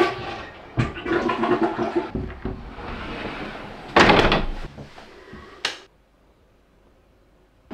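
Toilet flushing: a rush of water that swells loudest about four seconds in, followed by a short sharp sound, then it cuts to silence.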